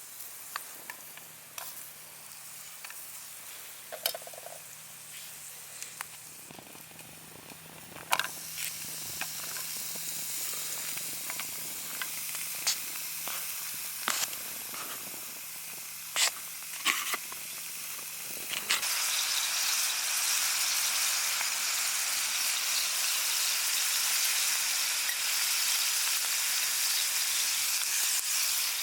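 Food sizzling in a hot pan, with occasional clicks and taps of a utensil against it; the sizzle grows much louder about two-thirds of the way through and then holds steady.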